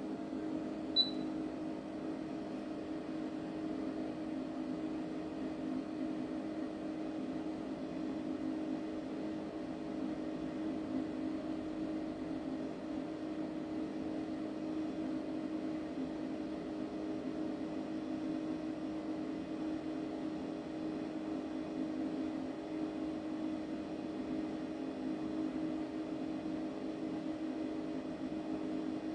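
Powered-up Okuma LB15 CNC lathe humming steadily while a program is simulated rather than cut, with a short click about a second in.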